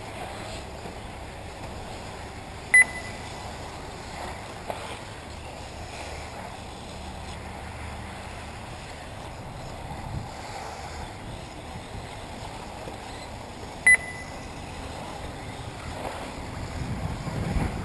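Two short electronic beeps from the race's lap-timing system, about three seconds in and again near fourteen seconds, over a steady outdoor hiss.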